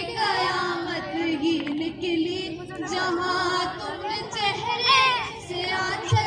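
A woman's voice amplified through a microphone and loudspeakers, rising and falling in pitch, with a steady held musical tone beneath it.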